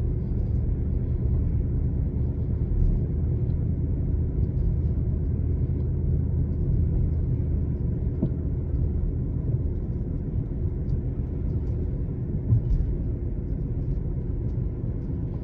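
Steady low road and engine rumble heard inside the cabin of a Lexus LS460 driving on a smooth road.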